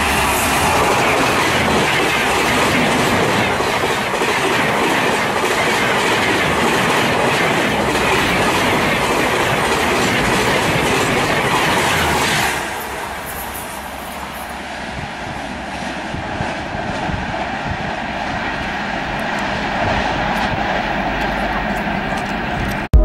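Shatabdi Express passenger train, hauled by an electric locomotive, passing close at speed: a loud rush with the coaches' wheels clicking over the rails. About halfway through it drops suddenly to a quieter rumble that grows slightly louder again near the end.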